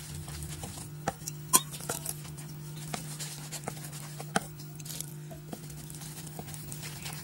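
A wooden stick stirs and scrapes rice flour mixed with hot water in a metal pot, with scattered knocks against the pot, over a steady low hum.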